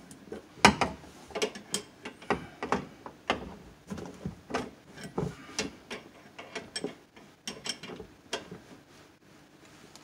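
Small open-end or crescent wrench clicking and clinking against a compression-coupling nut as it is turned, lifted off and re-set again and again while the nut is tightened. Sharp, irregular metal clicks, about two a second, stopping about eight and a half seconds in.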